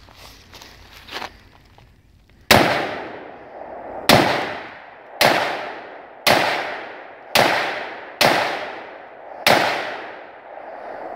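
Smith & Wesson M&P15 AR-15 rifle fired semi-automatically, seven shots about a second apart starting a couple of seconds in, each followed by a long fading echo. The string empties the magazine, leaving the bolt locked open.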